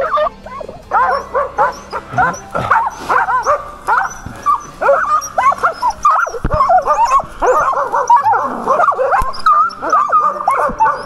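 A pack of West Siberian Laikas barking and yelping at a bear they have brought to bay, many dogs at once in a dense, unbroken stream of short high barks.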